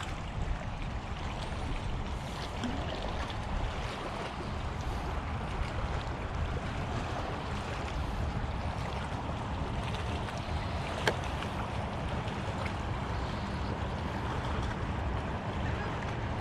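Steady wind buffeting the microphone, with water washing at the shoreline underneath. A single sharp click about eleven seconds in.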